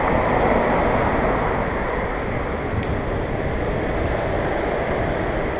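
Steady wind rush over the camera microphone, with tyre and road rumble from an electric bicycle pedalled along a paved path with its motor assist switched off.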